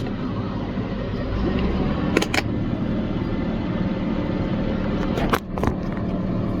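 Tractor engine running steadily under load while pulling a muck spreader, with a few sharp knocks about two seconds in and again near five seconds.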